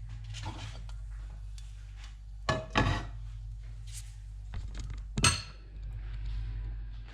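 Kitchen utensils and dishes clinking and knocking a few times, the loudest knock a little past halfway, over a steady low hum.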